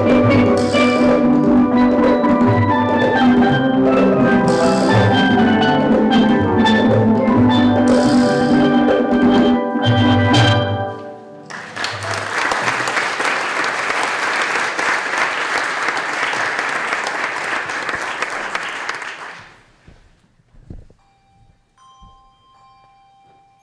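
Steel drum band playing with bass pans and drums, the piece ending about 11 seconds in. The audience applauds for about eight seconds, then it falls quiet, with a faint ringing tone near the end.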